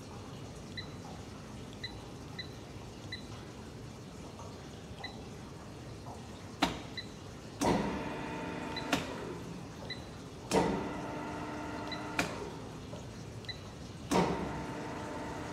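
Steady machine-room noise from a chocolate ball mill plant, with faint high ticks about once a second. From about six seconds in come six sharp metallic knocks about a second and a half apart, and three of them ring on for a second or two.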